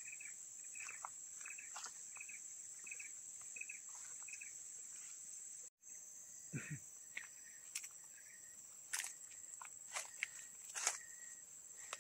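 Footsteps crunching irregularly on dry leaf litter, most of them in the second half. Behind them is a steady high drone of insects. In the first half, a chirping call repeats about twice a second.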